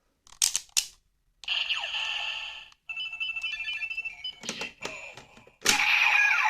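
Kamen Rider Hibiki Ridewatch and Ziku-Driver toy belt playing electronic sound effects and a fast repeating beep tune through a small speaker. Sharp plastic clicks come about half a second in and again near the end as buttons are pressed and parts snap into place.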